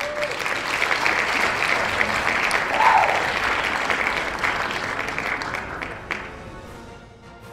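Crowd applauding, building to a peak about three seconds in and then fading out near the end.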